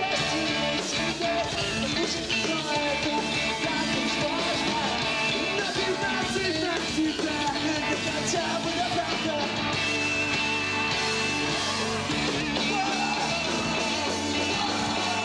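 Emo rock band playing live: electric guitars, drums and sung vocals together in a dense, steady wall of sound.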